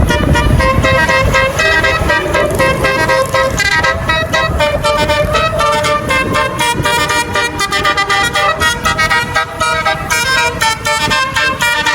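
Tour bus basuri horn, the multi-note musical 'telolet' horn, playing a quick tune of short stepped notes over and over, with engine rumble underneath at first.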